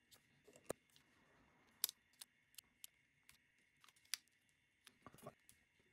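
Faint, scattered sharp clicks and taps, about a dozen, from a small tool working at an iPhone 4's glued-down battery and the phone's case as the battery is pried loose.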